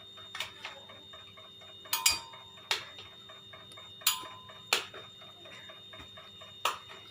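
Dragon fruit pieces being put into a blender jar: about seven sharp, irregular knocks against the jar, two of them leaving a brief ring. A faint, steady ticking runs underneath.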